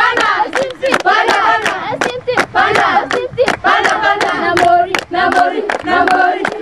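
A group of voices singing a warm-up chant together in unison, over steady rhythmic hand clapping at about two to three claps a second.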